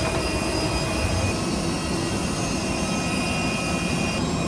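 Jet airliner engines running steadily: a constant rushing noise with a high whine of several steady tones.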